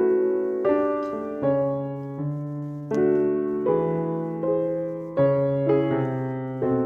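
Gentle piano music: chords struck about every three-quarters of a second, each fading away before the next, over a slowly changing bass line.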